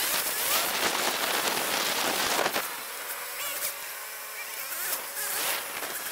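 Steady crackling hiss of wind and road noise on the microphone of a camera mounted on a slowly ridden motorcycle, easing a little about two and a half seconds in.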